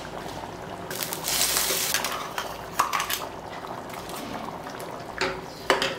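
A metal spoon clinks and scrapes against a steel pan and a mixer jar as coarsely ground chickpea paste goes into simmering gravy. There is a patch of hissing about a second in, and a few sharp clinks near the end.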